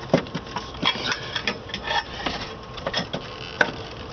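Carbon-fibre firewall panel and plastic cowl trim knocking and clicking against each other as they are worked into place by hand. Irregular clicks and taps, with one sharper knock near the end.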